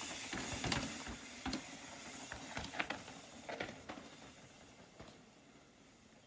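Mountain bike riding over rock: a steady hiss of tyres and air with scattered knocks and clicks from the bike. It fades away over the last couple of seconds.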